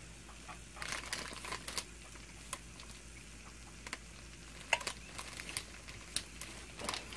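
Breaded chicken tenders crackling on the hot plate of a George Foreman grill: scattered small pops and clicks starting about a second in.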